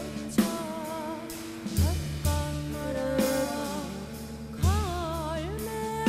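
Korean traditional–jazz fusion music: a woman sings long notes with a wavering, ornamented voice over a jazz drum kit and deep low notes. Drum hits land about half a second in, near two seconds and near five seconds.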